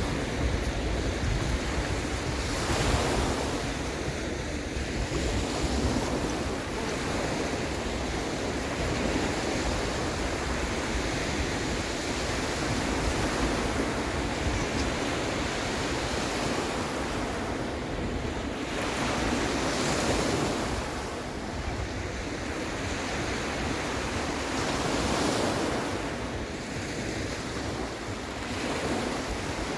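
Sea waves washing and breaking, the surf swelling and easing every few seconds, with wind rumbling on the microphone.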